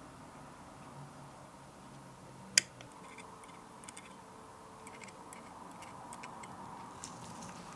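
Metal tweezers clicking and tapping against a plastic scale-model chassis as tiny metal pedals are fitted. There is one sharp click about two and a half seconds in, then scattered light ticks, over faint hiss.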